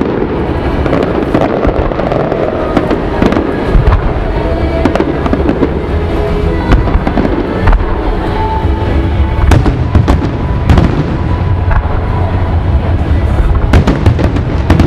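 Aerial fireworks bursting again and again: many sharp bangs over a continuous low rumble, with music playing underneath.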